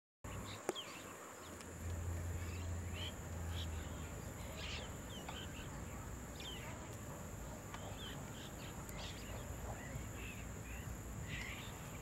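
Outdoor bird and insect ambience: short, scattered bird chirps several times a second over a steady, high-pitched insect drone, with a few faint clicks.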